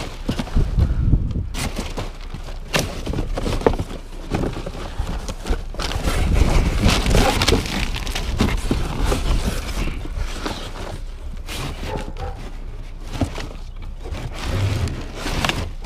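Cardboard boxes and paper rustling, scraping and knocking as a gloved hand rummages through a dumpster full of cardboard, with many short, irregular knocks.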